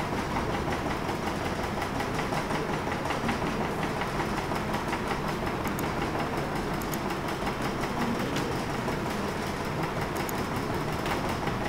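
Steady mechanical background noise, even in level, with a few faint clicks scattered through it.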